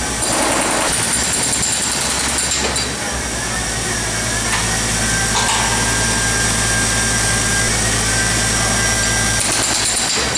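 Power demolition tools breaking up the concrete underside of a garage ceiling: a loud, continuous noise over a steady machine hum.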